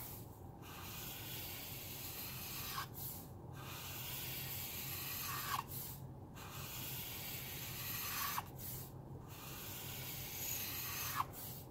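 Black Caliart alcohol marker's felt nib dragging across paper with a scratchy hiss. It draws a long straight line about every three seconds, with a brief pause between strokes as the marker is lifted.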